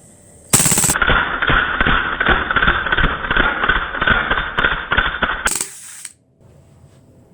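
Umarex Beretta M9A3 .177 CO2 BB pistol firing on full auto: a loud, rapid, uneven string of shots lasting about five seconds, stopping about five and a half seconds in.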